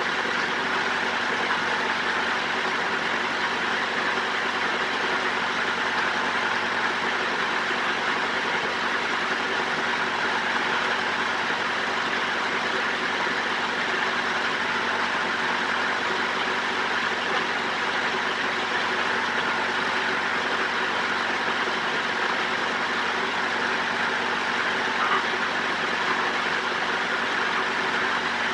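A motor running steadily: an even, unchanging hum with several held tones over a broad hiss.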